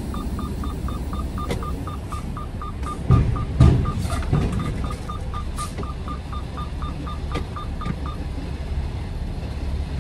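Semi truck's diesel engine running at low speed while reversing, heard from inside the cab, with a rapid high beeping about four times a second that stops about eight seconds in. Two heavy thumps a little past three seconds and just before four seconds in.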